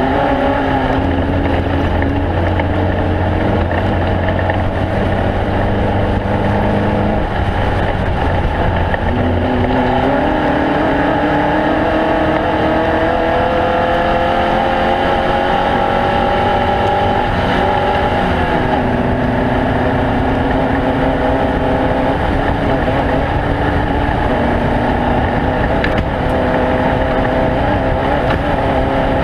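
Several engines running together, their pitches overlapping and slowly rising and falling as they rev, with a steady low hum during the first third.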